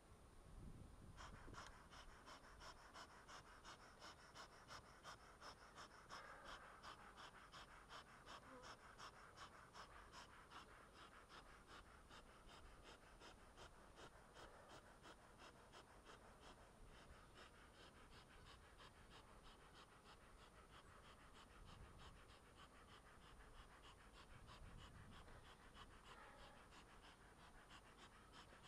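Bee smoker's bellows being pumped: faint, even puffs of air in a quick, steady rhythm that starts about a second in and stops near the end.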